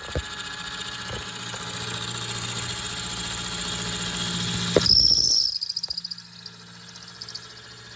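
An electric shop grinder runs with a steady motor hum and a rising hiss of steel being ground. About five seconds in, the grinding peaks with a brief high squeal and then stops, while the motor keeps running.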